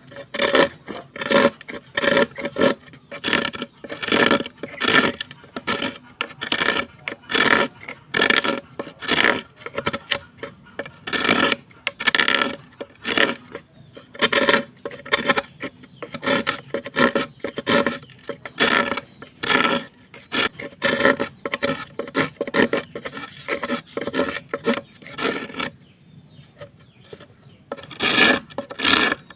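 A hand tool scraping on bamboo in rhythmic back-and-forth strokes, nearly two a second. The strokes stop for a couple of seconds near the end, then start again.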